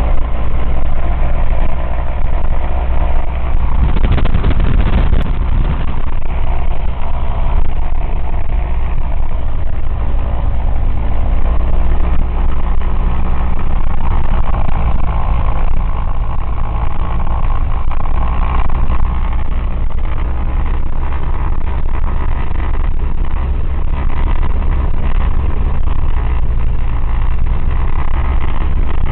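Cessna 172's piston engine and propeller running steadily at run-up power during a magneto check, with a brief noisier surge about four seconds in and small shifts in tone later.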